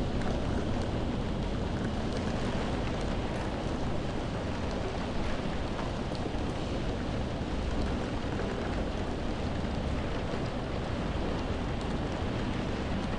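Heavy rain on window glass, heard from indoors: a steady, dense hiss over a deep low rumble, with scattered sharp drop ticks.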